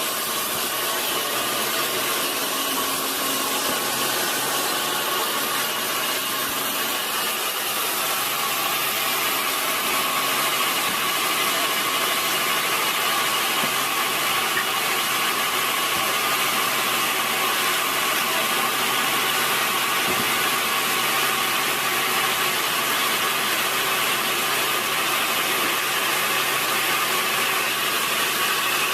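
Sawmill machinery running steadily: a continuous mechanical noise with a constant whine and no breaks or changes.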